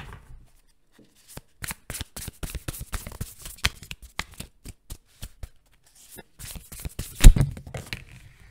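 A tarot deck being shuffled by hand: quick runs of card-riffling clicks in two stretches, with one louder thump a little over seven seconds in as the cards are knocked or set down.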